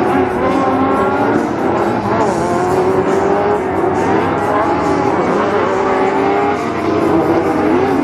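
Several Pro Lite short-course off-road racing trucks' engines running at once, their pitches rising and falling as the drivers rev and lift through the turns, over a steady haze of tyre and engine noise.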